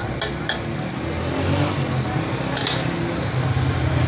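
Sliced onions sizzling in hot oil on a flat iron tawa, with a couple of metal spatula clicks against the griddle in the first half-second. A steady low engine-like hum runs underneath.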